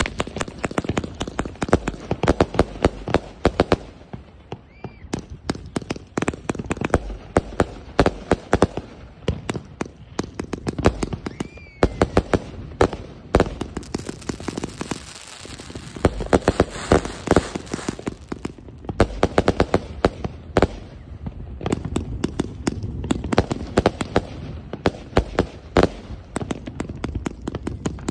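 A 180-shot firework cake firing shot after shot, several launches and bursting pops a second without a break. About halfway through, a stretch of hiss joins the pops.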